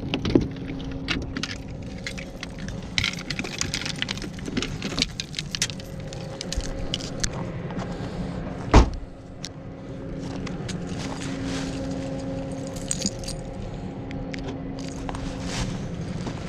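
Fishing rods and gear being handled and pulled from a car trunk: light rattling and clattering throughout, with one loud thump a little past the middle, over a steady low hum.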